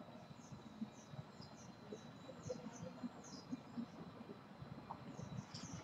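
Quiet room tone with faint, high, short chirps of a small bird repeating irregularly, over a thin steady high-pitched whine.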